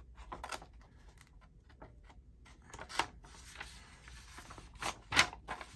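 Scissors snipping paper to cut a hole in a paper tag: a few short, sharp snips amid soft paper rustling, the loudest near the end.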